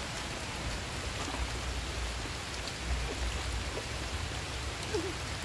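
Heavy rain falling steadily on open water, a constant hiss of drops striking the surface with a low rumble underneath.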